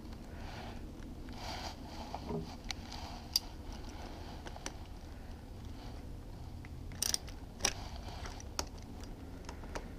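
Faint scattered clicks and scrapes of a plastic fuel filter bowl being threaded back onto an outboard motor by hand, over a low steady hum.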